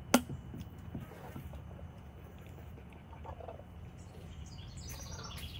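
Handheld can opener cutting around a can lid: one sharp metallic click just after the start, then a few quieter clicks. A bird chirps several times near the end.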